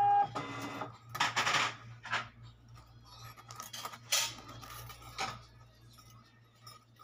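A stack of thin gold bangles clinking and jingling against one another as they are handled, in several short bursts over a steady low hum.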